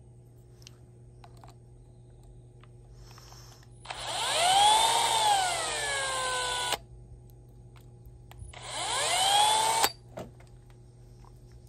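Cordless drill with a metal twist bit running free in two trigger pulls, about three seconds and then about a second and a half. The motor whine climbs as it speeds up, the first pull easing back before it stops, and each cuts off abruptly when the trigger is released.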